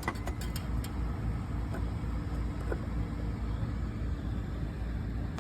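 Steady low rumble with a few short clicks in the first second and two faint ticks later, from panel screws being taken out.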